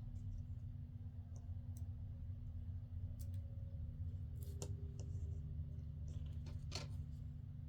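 Scattered light clicks and taps from paper craft pieces being handled and pressed onto a page, over a steady low hum.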